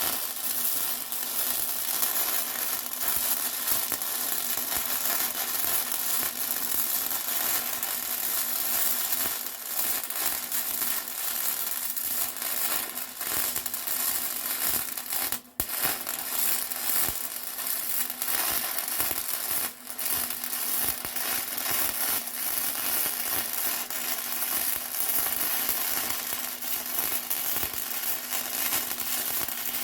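Electric arc welder crackling and sizzling steadily as a bead is laid along a crack in a steel mower deck, with a faint steady hum underneath. The arc breaks off briefly twice, about fifteen and twenty seconds in.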